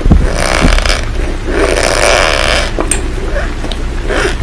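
Crunching in bursts about a second long, turning into shorter crackles near the end, over a steady rain background.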